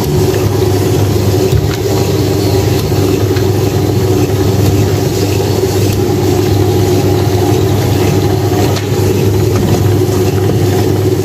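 Electric dough sheeter (roti-rolling machine) running with a steady motor hum while dough is passed through its rollers.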